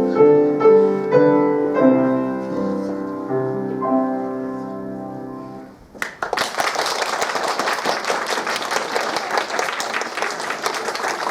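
Piano plays the closing bars of a song, the notes dying away, and then audience applause breaks out suddenly about six seconds in and carries on steadily.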